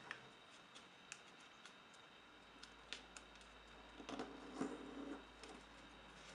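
Faint taps and rustles of a small sheet of paper being folded and creased by hand, with a louder stretch of paper rustling about four to five seconds in.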